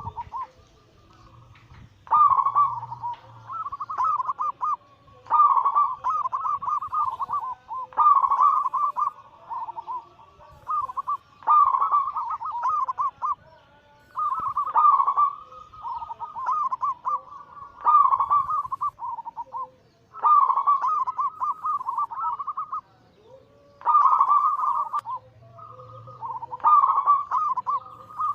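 Zebra dove (perkutut) cooing its rapid, stuttering song. The phrases last about two seconds each with short pauses between them, about a dozen in a row.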